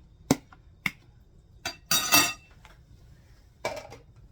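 Utensils knocking and clinking against a bowl as a salad is tossed: a few sharp separate knocks, with a ringing clink about two seconds in and another knock near the end.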